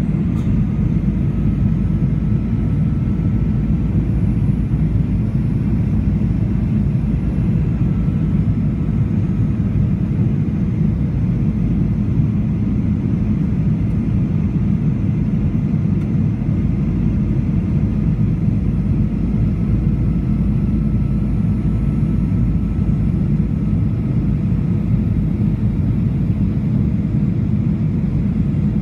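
Steady low rumble inside the cabin of a Boeing 737-900ER in flight: its CFM56-7B turbofan engines and the airflow over the fuselage, heard from a window seat over the wing.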